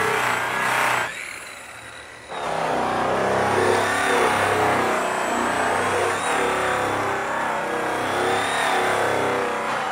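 Corded rotary polisher with a foam pad and buffing compound running at high speed against a sanded metal truck hood, its motor whine wavering as the pad is pushed and moved. About a second in, the sound drops away sharply, and it comes back in full just over a second later.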